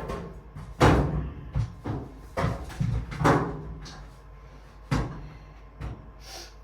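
Irregular knocks and thumps of someone clambering about in a tight space behind a clothes dryer, bumping against the appliance and the wall. There are about six strong bangs, the loudest about a second in and again near three seconds.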